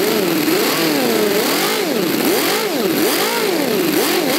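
Homemade four-stroke V8 model engine with rotary valves running, its pitch rising and falling again and again as it is revved up and down in quick blips.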